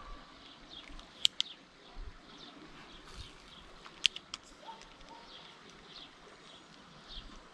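A small bird calling with short high chirps that repeat one or two a second, with a few sharp clicks over it: two about a second in and three in quick succession about four seconds in.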